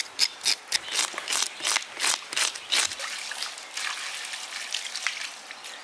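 A fish scaler scraping the scales off a whole red snapper in quick strokes, about three a second. About three seconds in, water is poured over the fish and splashes onto the stone slab.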